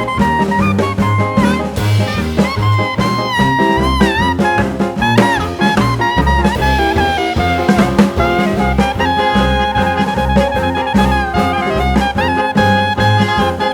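Background music: upbeat swing jazz with brass melody lines over a walking bass and drums.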